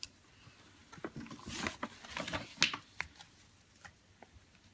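Glossy paper rustling and crinkling as stickers are peeled from a sticker sheet and pressed onto a paper poster, with a few light clicks and taps. The handling is busiest in the middle, with one sharp crackle near the end of it.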